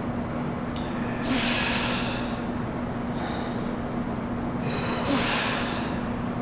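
Two forceful, hissing exhales of a person straining through repetitions of a bodyweight exercise, one about a second in and one about five seconds in, each lasting under a second, over a steady low hum.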